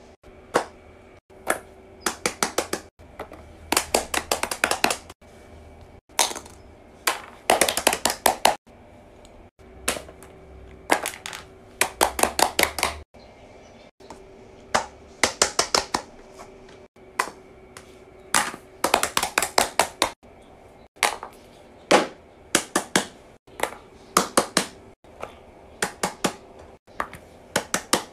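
Bursts of rapid, sharp clicking, several quick clicks at a time, repeated over and over with short pauses between.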